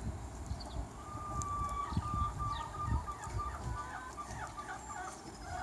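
Backyard chickens clucking and calling: a drawn-out call starts about a second in, followed by a run of short, quick notes.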